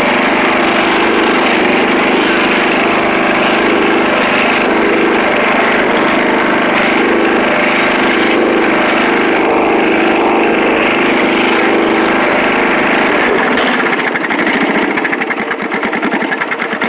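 Riding lawn mower's small engine running steadily and loudly. About 14 s in, the sound changes to a rapid, even pulsing and the level dips and wavers.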